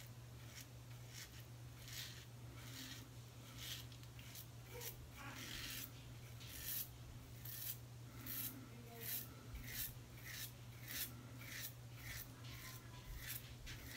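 Safety razor scraping stubble through shaving lather on the neck: short scraping strokes, about one or two a second, with a longer stroke about five seconds in, over a faint steady hum.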